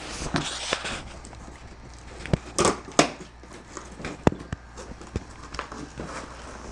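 Cardboard box and packaging being handled and opened: rustling, with scattered knocks and clicks.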